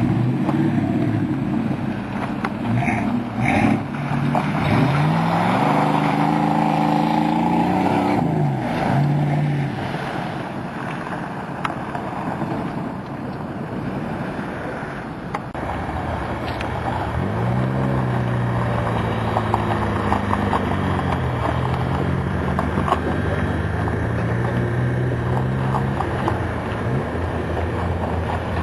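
Off-road truck engine revving up and down under load, its pitch climbing and falling twice, once early on and once past the middle.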